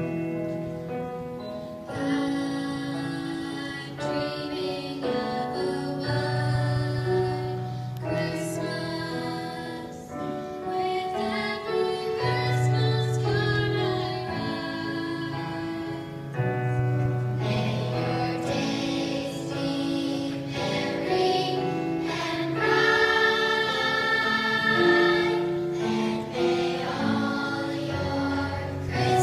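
A children's choir singing a song in chorus, with held notes that change every second or so, over a low accompaniment.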